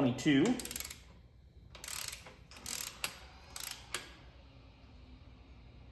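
Socket ratchet clicking in four short bursts of fast clicks as a nut at the lower rear-shock mount is run down.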